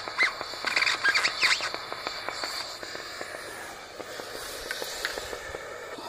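Steady hiss of a gas brazing torch flame as the capillary tube is brazed to the refrigerator's filter-drier, fading out about three seconds in as the flame is taken away. Small birds chirp repeatedly over it in the first second and a half.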